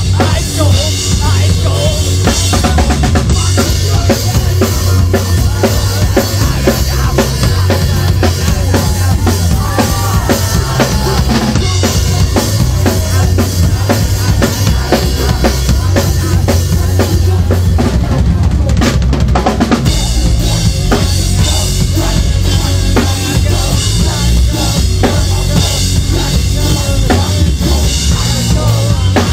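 Live punk band playing loudly, recorded from the crowd: a pounding drum kit with heavy bass drum and snare over a thick, booming low end. The cymbals and highs drop out briefly about two-thirds of the way through.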